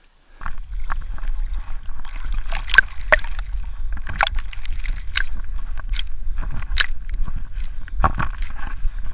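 Water sloshing around a small folding plywood boat, with irregular sharp knocks and clicks over a low steady rumble.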